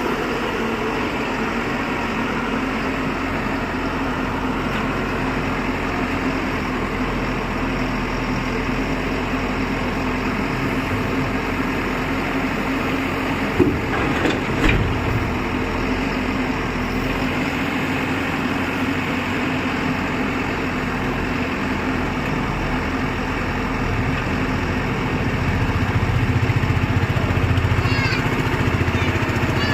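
ACE AX 124 backhoe loader's diesel engine running steadily, with a couple of knocks about halfway through. The engine note grows louder over the last few seconds.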